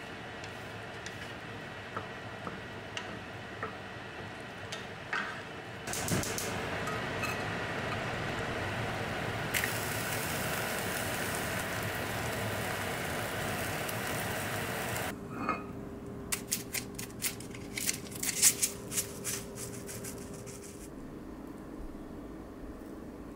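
An egg frying with chopped scallions in a nonstick pan, sizzling steadily from about six seconds in until it stops abruptly near the middle. Then a run of light clicks and taps from a spoon and chopsticks on a ceramic bowl as it is topped with seaweed strips and sesame seeds.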